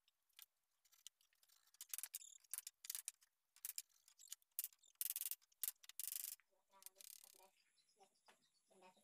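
Pen scratching lines along a steel square on a planed wooden door panel: a run of short, sharp scratchy strokes that stops about six seconds in.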